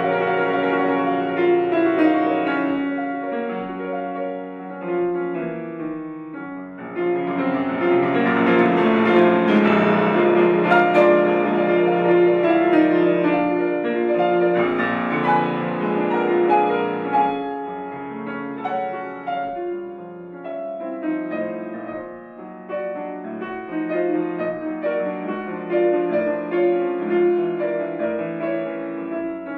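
Solo grand piano playing classical music. It grows fuller and louder for about ten seconds a quarter of the way in, then eases back to a softer passage.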